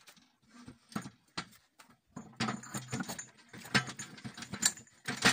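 Steel parts clinking and clanking as a homemade screw-cone log splitter's shaft and coupling are pushed onto a walk-behind tractor's wheel hub in place of the wheel. There are a few separate knocks, then a dense run of clatter from about two seconds in.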